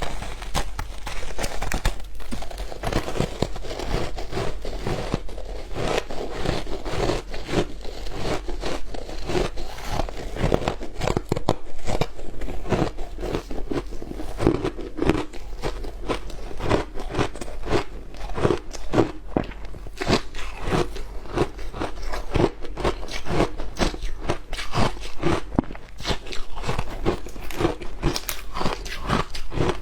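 Frozen matcha ice being bitten and crunched close to the microphone: a continuous run of rapid, sharp crunches and cracks, with chewing between bites.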